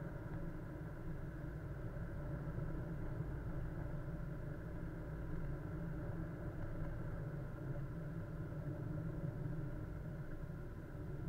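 Car engine running steadily, a low, even hum as picked up by a dashcam.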